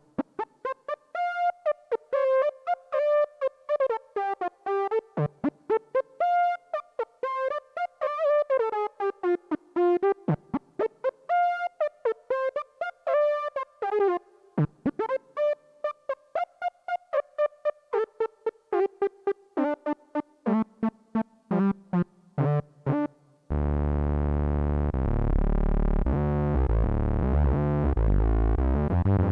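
Behringer Odyssey analog synthesizer, a copy of the ARP Odyssey, played as a fast run of short, separate notes in a melody that wanders up and down. Near the end it switches suddenly to a loud, thick, sustained low sound.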